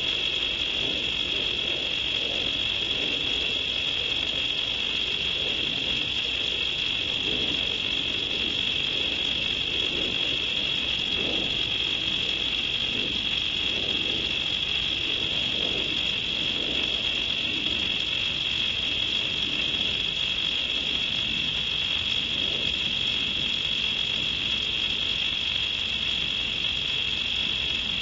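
Steady night chorus of crickets: a continuous high trill that holds unchanged throughout. Fainter, irregular low sounds lie underneath it.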